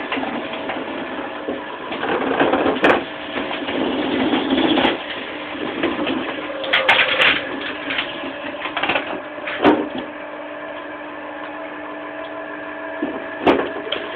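Electric-motor screw-cone log splitter running with a steady hum while a stump is forced onto the spinning cone: wood grinding and splintering, with several sharp cracks as the stump splits apart.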